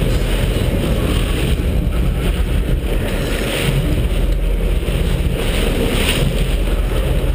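Sportfishing boat's engines running under way, with wind buffeting the microphone and the wake churning and splashing at the stern.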